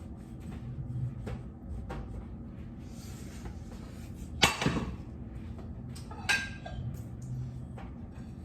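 Dishes being handled at a kitchen sink: a few light knocks, then two sharp clatters of crockery nearly two seconds apart, the first the loudest.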